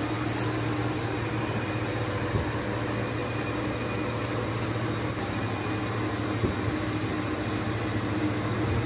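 A steady low hum fills the kitchen while a wooden rolling pin rolls roti dough out on a marble board, with a soft knock twice.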